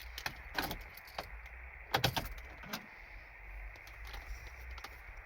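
Car key put into the ignition: keys jangling, with a series of sharp clicks, the loudest about two seconds in, over a low steady hum.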